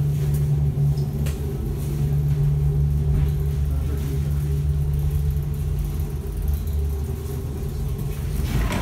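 Interior noise of an ED4M electric multiple-unit car: a steady low hum and rumble with a faint steady tone above it. Near the end a brief louder noise comes as the gangway door is reached.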